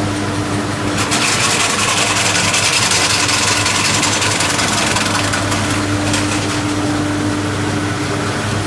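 Electric fish scaling and belly-splitting machine running: a steady motor hum under a loud, rapid hissing rasp that comes up about a second in, eases around five seconds and briefly returns near six.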